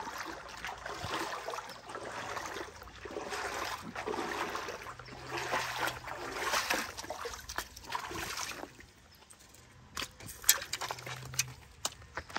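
Water trickling and splashing at a concrete spillway, mixed with close handling noise as a hooked bass is unhooked. Near the end, a few sharp clicks and steps on gravel.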